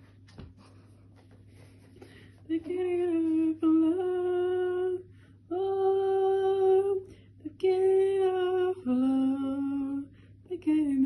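A domestic cat's long, drawn-out yowls, the moaning call a cat makes while carrying a toy or prey, here a towel it has dragged. There are about half a dozen steady-pitched calls of a second or so each, starting about two seconds in, with one call about nine seconds in pitched lower.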